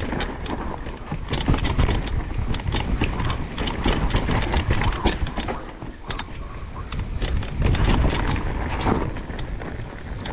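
Mountain bike riding down a rough dirt trail: a dense clatter of knocks and rattles from the bike over rocks and roots above a steady low rumble, easing off near the end.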